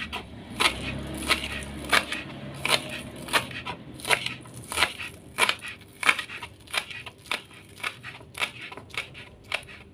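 Kitchen knife slicing spring onions on a wooden cutting board: a steady run of crisp cuts, about one and a half a second, each ending with the blade knocking on the board.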